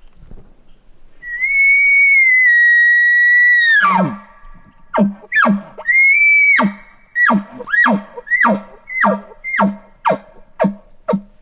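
Bull elk bugling: a long, high whistle held for about two and a half seconds that breaks sharply downward, then a second, shorter bugle, and a string of chuckles, short falling notes over a low grunt at about two a second.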